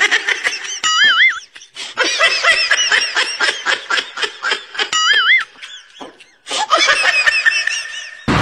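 A dubbed-in laughing sound effect: fast, pulsing ha-ha laughter, with high wavering squeals about a second in and again about five seconds in, and a brief lull around six seconds.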